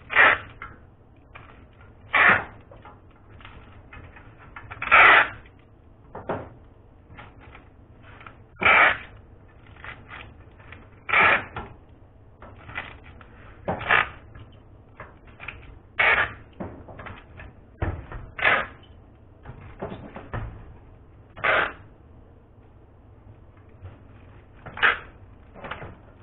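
Chocolate packaging being handled by hand: short rustling bursts about every two to three seconds, with softer rustles between them.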